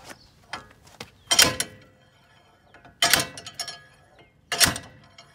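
Slide hammer's sliding weight slamming against its end stop three times, about a second and a half apart: sharp metal clanks that ring briefly, with light clicks between strikes. Each blow is jerking the front wheel hub out of the steering knuckle.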